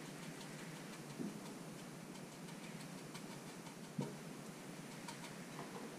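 A tin of Old Bay seasoning being shaken over fish: a few faint ticks and taps, the sharpest about four seconds in, over low room hiss.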